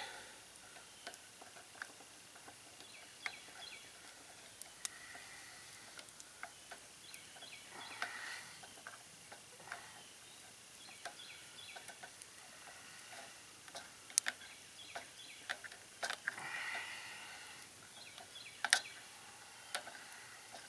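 Leatherman multitool's can opener working its way around the lid of a can heated in the fire: irregular sharp clicks and small metal scrapes. Brief hisses from the hot can come about a third of the way in and again near the end.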